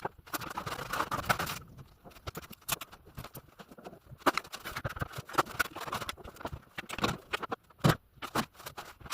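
Tiling work on a tiled bath panel: irregular sharp clicks and knocks mixed with stretches of scraping, with a few louder knocks near the end.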